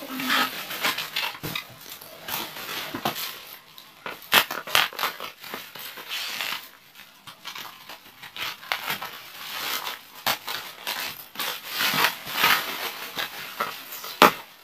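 Scissors snipping and parcel packaging crinkling and tearing as a package is cut open, with irregular sharp clicks and crackles.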